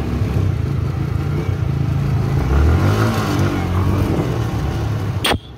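Motorcycle engine running while riding. A sharp click near the end, after which the sound drops much quieter.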